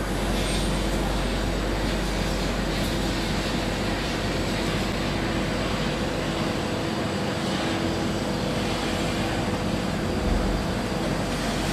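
Steady mechanical hum with a rush of air inside an enclosed, rotating observation-tower cabin, even and unbroken, with a few faint steady tones.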